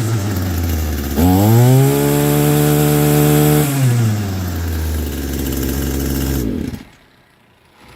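Echo GT-225 string trimmer's small two-stroke engine running after a pull-start replacement. About a second in it revs up sharply, holds high for a couple of seconds, then drops back to idle and cuts out near the end.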